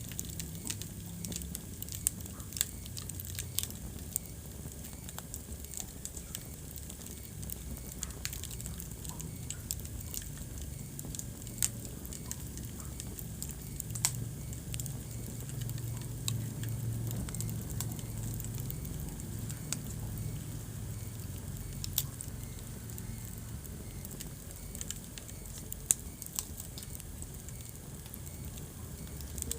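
Wood fire burning in a fireplace, crackling with scattered sharp pops over a low steady rumble.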